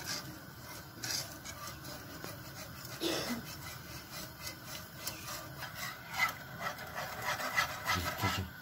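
Wire whisk scraping and clicking around a nonstick frying pan of thickening milk pudding, in a run of quick strokes that get busier in the second half.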